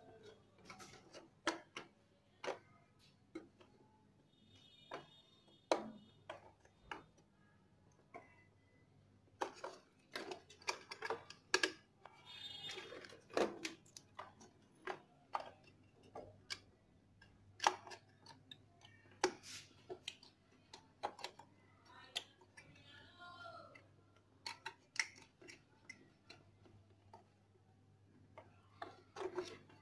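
Irregular clicks and taps of hands pushing motorcycle wiring connectors together and handling the plastic headlight housing, with a few short squeaks.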